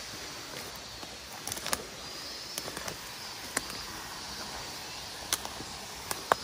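Footsteps snapping twigs and crunching leaf litter on a forest slope, a few sharp cracks spread over the seconds, over the steady rush of a stream pouring over a small check dam.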